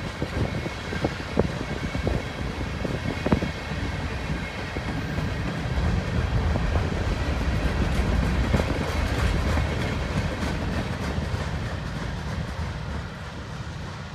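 Union Pacific freight train cars rolling past: a steady rumble of steel wheels on the rails with sharp clanks and knocks in the first few seconds, easing a little near the end as the last covered hoppers pull away.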